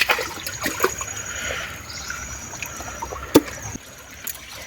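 Shallow river water splashing and trickling as a fishing net and its catch are handled in it, with a few short clicks and one sharper knock about three and a half seconds in.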